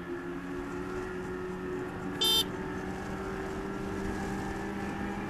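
Revolt RV400 electric motorcycle accelerating under way, a steady whine rising slightly in pitch over wind and road rumble. A short, high beep sounds about two seconds in.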